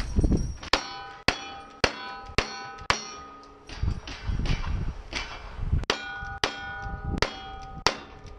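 Gunshots fired at steel plate targets, each sharp crack followed by the ringing clang of the struck steel. The shots come about half a second apart in two strings, with a lull of a few seconds in the middle.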